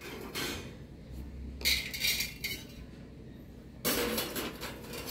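Thin galvanized steel sheets clattering against the gas stove's iron burner grates as they are laid on and shifted into place, several separate short clanks.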